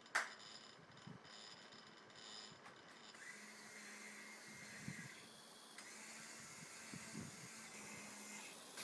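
Small electric motors of a homemade soldering robot running: a sharp click just after the start, then a faint, steady motor whine from about three seconds in that changes briefly midway and stops near the end.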